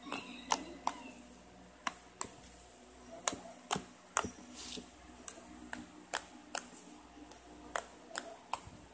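Hands squeezing and poking soft blue slime, giving an irregular run of sharp sticky clicks and pops, about two a second.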